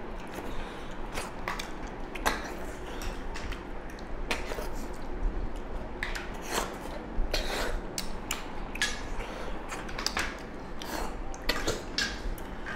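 Irregular clicks and clinks of snail shells and fingers against steel plates, with mouth noises as two people eat a snail (tharoi) and pork curry by hand.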